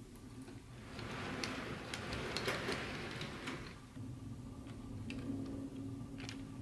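Bachmann HO-scale electric model train running on its track: a steady motor hum with light ticking from the wheels over the rail joints, growing louder for a few seconds from about a second in.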